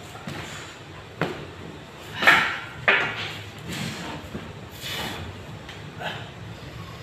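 Plate-loaded iron dumbbells and a weight bench knocking as a lifter sits down with the weights and lies back to press. There are sharp knocks about a second in and again near three seconds, a louder rushing sound between them, and softer bumps after.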